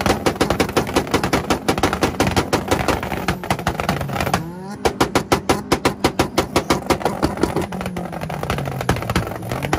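A car engine held on a two-step launch limiter, firing rapid, even pops and bangs, about eight to ten a second. The popping breaks off briefly about halfway through, then starts again.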